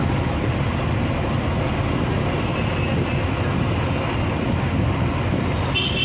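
Bus travelling along a road, heard from inside: a steady engine and road rumble. A brief high-pitched tone sounds near the end.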